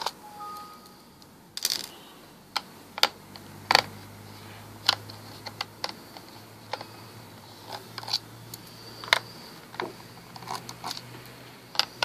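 Small sharp clicks and taps at irregular intervals from a screwdriver and tiny screws on the plastic bottom cover of a Toshiba P50 laptop, as the cover screws are taken out.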